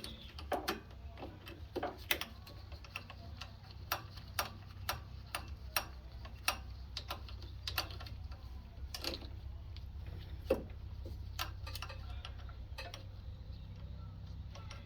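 Hand tools working on metal: irregular sharp clicks and light metal taps, a few each second, over a steady low hum.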